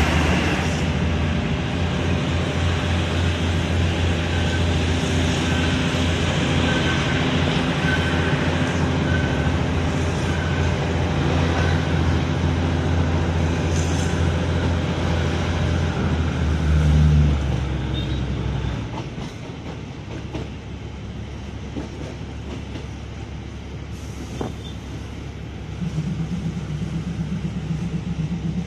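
Diesel passenger train running on the track: a steady low engine drone with wheels on rail. The drone swells briefly, then drops away about two-thirds of the way through, leaving a quieter rumble, and a lower engine hum comes back near the end.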